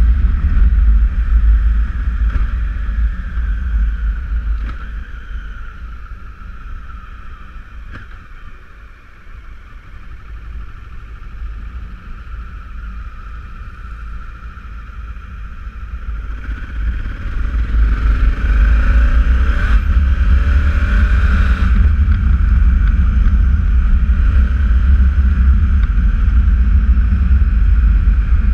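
Honda Africa Twin CRF1000L motorcycle on the move: heavy wind rumble on the microphone over its parallel-twin engine. The sound eases as the bike slows through the middle, then builds again as it accelerates, with the engine pitch rising from about 17 seconds in.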